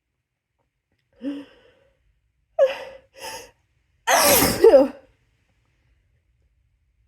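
A person's induced sneeze: three short catching gasps building up, then one loud, harsh sneeze about four seconds in, lasting under a second.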